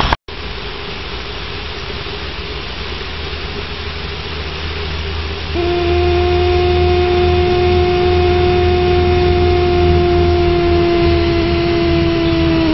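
Aristocraft 2-8-2 Mikado live-steam model locomotive running with a steady hiss of steam. About halfway through its steam whistle starts and holds one long, steady note.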